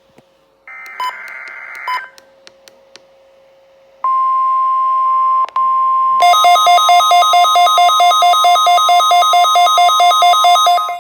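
NOAA Weather Radio Required Weekly Test signal on weather radio receivers. About a second in, a buzzy SAME digital header burst lasts just over a second, followed by a short gap. About four seconds in, a steady tone near 1 kHz (the 1050 Hz warning alarm tone) begins, and about two seconds later the receivers' alarm starts: a rapid beeping that alternates between two pitches, about four beeps a second, over the tone.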